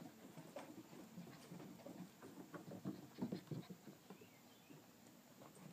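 Faint, irregular pattering of six-week-old Shiloh Shepherd puppies' paws scampering on wooden deck boards, busiest around the middle and thinning out toward the end.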